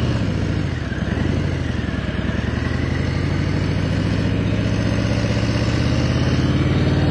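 A cruiser motorcycle's engine running steadily, with an even, low, pulsing beat.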